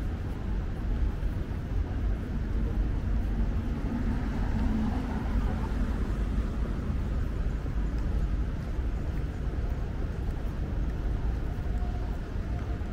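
City street ambience: a steady low rumble of traffic, with faint voices of passers-by now and then.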